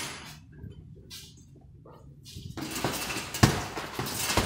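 Gloved punches landing on a hanging heavy punching bag: a few sharp thuds in the second half, the loudest two about a second apart near the end.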